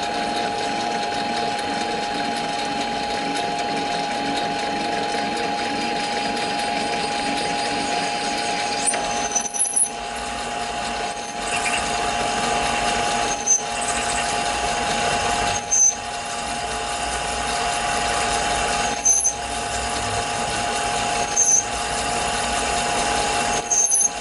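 Taig lathe running with a steady motor whine while an MT1 taper reamer held in the tailstock is fed into a spinning test piece. From about ten seconds in, short high squeaks come every two to three seconds.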